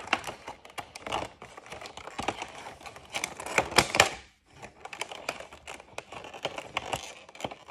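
A cardboard craft-kit box and its contents being handled and packed back in: irregular clicks, taps and crinkling rustles, loudest about four seconds in.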